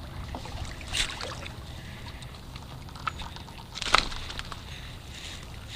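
Water sloshing against a small fishing craft over steady low wind rumble, with two brief sharp splashes or knocks, one about a second in and one near four seconds, while a hooked fish is brought in.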